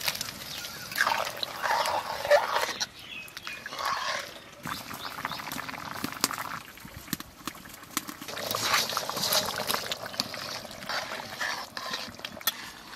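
Pumpkin chunks and pumpkin greens tipped from a bowl into boiling curry in a metal kadai, then the bubbling curry stirred with a ladle, the noise coming and going in several surges.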